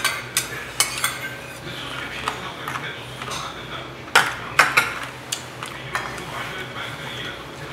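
Metal spoons and chopsticks clinking against stainless steel and earthenware bowls while eating: scattered sharp clinks, the loudest cluster about four seconds in, over a steady low hum.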